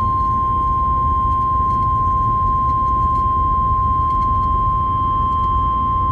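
Emergency Alert System attention tone on a car radio: one steady, unbroken pitch that holds through, the signal that an emergency warning message is about to be read. A constant low road rumble from the moving car runs underneath.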